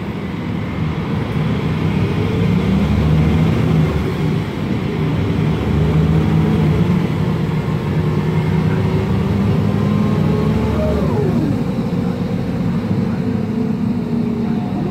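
Cabin sound of a MAN Lion's Classic city bus under way: its MAN E2876 compressed-natural-gas engine running under load, with a whine from the ZF Ecomat 6HP504C automatic gearbox climbing slowly with speed. About eleven seconds in the pitch falls sharply and the deep engine rumble drops away.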